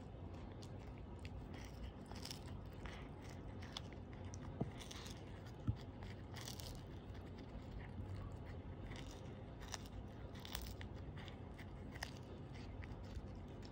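Siamese cat chewing and crunching on a capelin, a string of irregular small crunches and clicks, with two sharper clicks about five seconds in.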